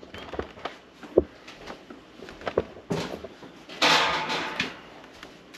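Hard plastic egg-incubator parts knocking and clicking as they are handled and fitted together, with a louder scraping rustle about four seconds in as a large plastic piece is lifted.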